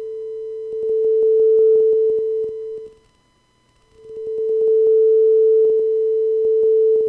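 Akai Miniak synthesizer sounding a steady sine-wave A at 440 Hz through its low-pass Moog-type filter as the cutoff is swept. The tone fades away to nothing about three seconds in and comes back about a second later, with a run of short clicks over it.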